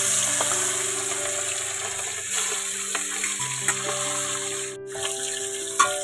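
Tilapia pieces sizzling as they fry in hot mustard oil in a steel wok, with a couple of sharp spatula clicks, the louder one near the end. Background music with held notes plays under the sizzle.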